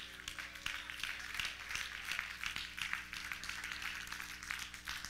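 Congregation applauding: many hands clapping at once in a steady patter.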